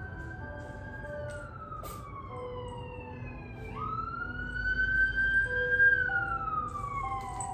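Emergency vehicle siren wailing in two slow cycles, each rising, holding high, then falling away. The second cycle starts abruptly about four seconds in and is louder, with a low rumble under it.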